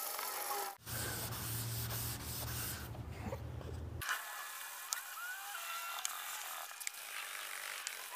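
Hand sanding cured body filler on a car door with 180-grit sandpaper on a flat sanding block: a steady back-and-forth rubbing scrape of paper on filler.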